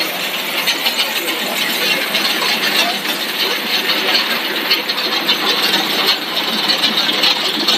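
Twin-screw food extrusion line for core-filled corn puffs running: steady, loud machine noise with a fast rattling texture.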